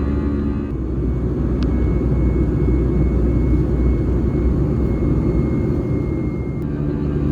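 Airbus A320 cabin noise on takeoff: a steady engine and airflow rumble heard from inside the cabin. Background music drops out about a second in and comes back near the end.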